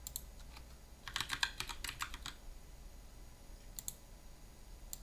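Typing on a computer keyboard: a quick run of about a dozen keystrokes about a second in, then two or three single clicks near the end.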